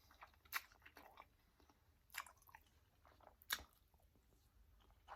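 Close-miked chewing of a bite of turkey sausage topped with onions: quiet mouth sounds broken by short sharp crunchy clicks, three louder ones spaced about a second and a half apart.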